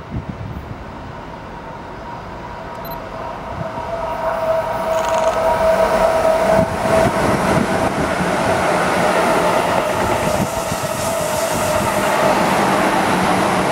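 Keihan 8000 series limited-express electric train passing through a station. Its running noise builds from about four seconds in and stays loud as the cars go by, with a steady high tone over the rumble.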